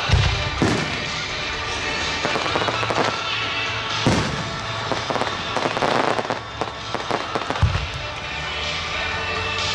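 Aerial fireworks shells bursting: booms near the start, about four seconds in and near the end, with a stretch of crackling in between.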